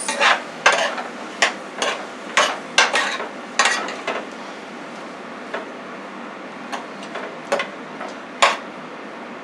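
A metal spoon stirring diced peppers and onions in a metal skillet, clinking and scraping against the pan about every half second at first, then only now and then, over a steady sizzle of the vegetables sautéing.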